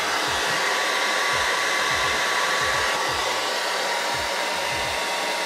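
Revlon hand-held hair dryer with a diffuser attachment, running steadily to dry wet hair: an even rush of air with a faint motor whine.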